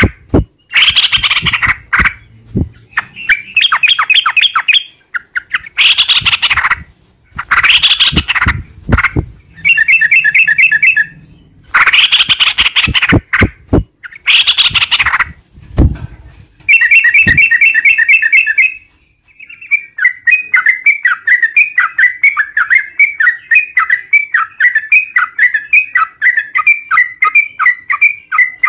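Yellow-vented bulbul (trucukan) singing loudly: harsh chattering calls alternate with rapid rolling trills, and in the last third a long run of quick, repeated down-slurred notes, about three a second.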